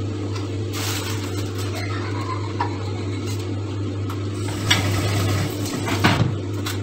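Beef mince with onion and chili simmering in a covered frying pan on an electric stove, sizzling steadily under the lid. A constant low hum runs underneath, and a few sharp clicks come through, the loudest near the middle and towards the end.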